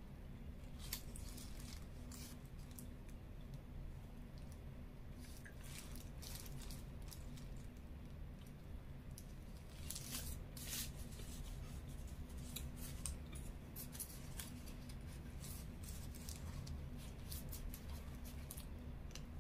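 Close-up eating sounds: a chicken burger being bitten and chewed, with its paper wrapper crinkling, heard as scattered sharp clicks and crackles. The clicks are thickest about halfway through, when the bite is taken, over a low steady hum.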